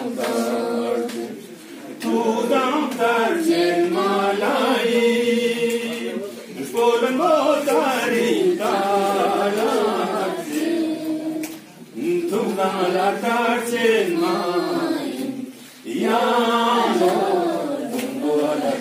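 A man singing a Ladakhi folk song unaccompanied, in long melodic phrases with held, wavering notes and a short break about every four seconds.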